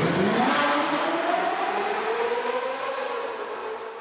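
Car engine accelerating hard, its pitch rising steadily, then fading away near the end.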